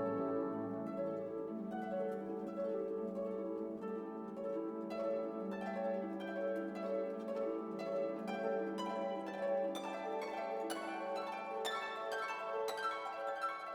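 Instrumental background music: plucked harp-like notes over held string tones, the plucked notes coming thicker in the second half.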